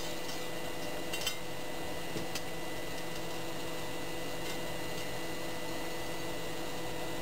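A few faint light clinks of metal parts being handled at the bench, over a steady, even hum.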